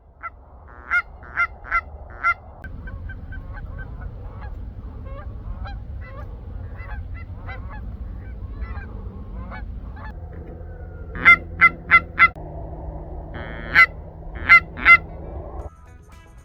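Canada geese honking: clusters of short, loud honks, about four in quick succession near the start and more around two-thirds of the way through, with many fainter honks from further off in between, over a steady low rumble.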